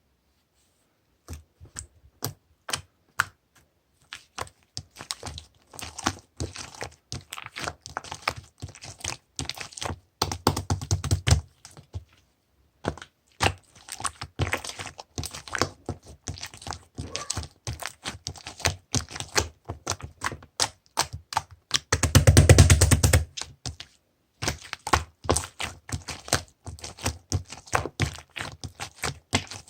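Gold pearl slime being pressed and squished by hand, making rapid irregular wet clicks and pops, with a brief pause in the middle and a louder, denser squelch about three-quarters of the way through.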